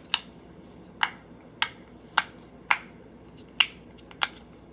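Silicone pop-it fidget having its bubbles pressed one at a time, each giving a short, sharp pop: about seven pops, spaced roughly half a second to a second apart.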